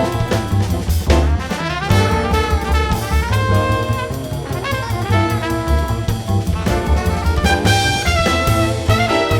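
Jazz recording with brass horns over drum kit and a walking bass line, playing continuously.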